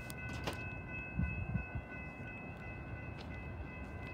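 A distant train approaching with a low rumble, a few soft thumps about a second in, under a steady high ringing of several pitches sounding together.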